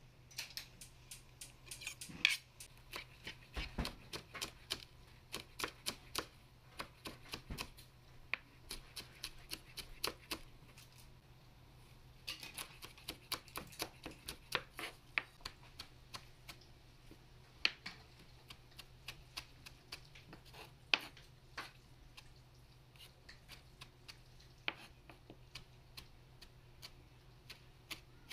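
Kitchen knife chopping small red chili peppers on a plastic cutting board: quick runs of sharp taps of the blade against the board, with short pauses between runs. The taps grow sparser after about sixteen seconds.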